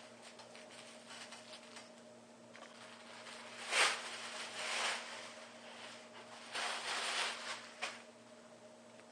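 Handling noise: two spells of rustling and scraping, about four and seven seconds in, with a few small clicks, over a faint steady hum.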